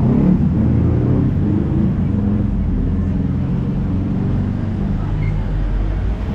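A steady low rumble with indistinct voices over it.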